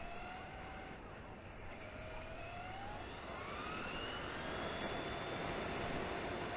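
High-pitched electric motor whine from a radio-controlled vehicle over a steady hiss, climbing in pitch about two seconds in as it speeds up, then holding steady.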